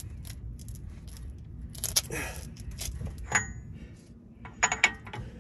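Metal clinks and clicks of a breaker bar and socket being worked on a car's rear wheel hub: a sharp ringing clink about two seconds in, another about three seconds in, and a quick cluster of clinks near the end.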